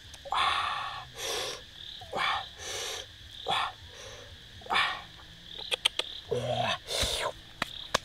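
Animal calls repeating about once a second, each short, over a steady high-pitched hum, with a quick run of clicks partway through.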